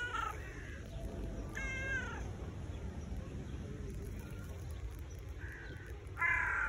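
Tabby cat meowing: a call at the very start, another about two seconds in, and a louder one near the end.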